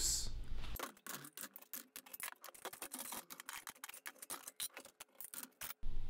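Quiet, rapid, irregular small clicks and ticks, many a second, with no steady background under them.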